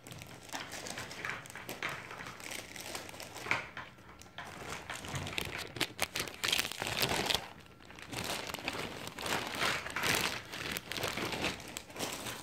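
Clear plastic packaging crinkling irregularly as it is handled.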